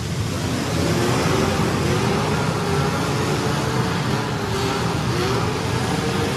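Demolition-derby compact cars' engines running and revving together in a continuous din, their pitches drifting up and down.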